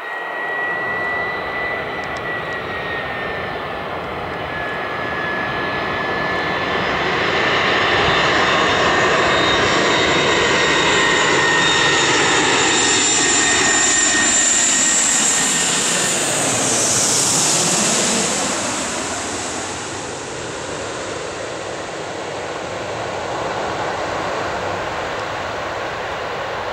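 Four-engine Airbus A340 jet airliner on low final approach: the jet engines' whine and roar grow louder as it nears, peak as it passes overhead about two-thirds of the way through with the high whining tones sweeping down in pitch, then settle into a lower, steadier rumble as it moves away toward the runway.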